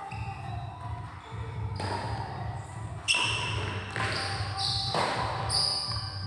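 Badminton rally: several sharp racket strikes on the shuttlecock and players' footwork on the court, some hits followed by a brief high-pitched ring, over a steady low hum.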